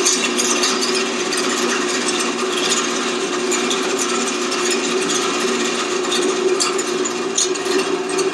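Top-down, gravity-fed continuous herb grinder running with a steady motor hum and irregular crackling as cannabis bud is fed in and shredded.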